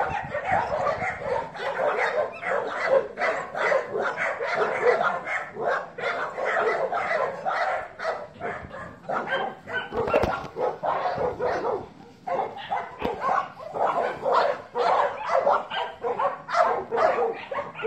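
Dog barking and yipping in rapid, nearly unbroken series, with a brief lull about twelve seconds in.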